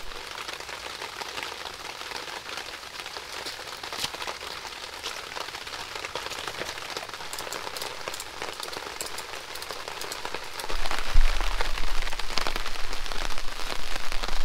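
Steady rain falling, with scattered sharp drops hitting close by. About eleven seconds in it grows louder and heavier, with a low drumming, as rain beats on a plastic tarp overhead.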